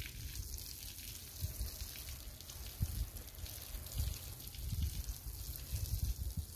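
Garden hose spraying water onto a horse's body and the dirt ground, a steady hiss, under an uneven low rumble.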